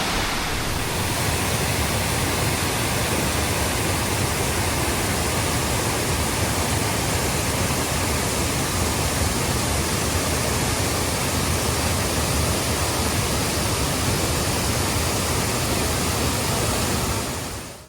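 Waterfall cascades rushing steadily at the lower falls of Kuang Si, a constant wash of falling water that fades out sharply near the end.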